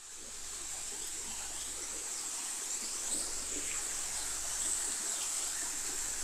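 Steady hiss of a stream's running water, fading in at the start.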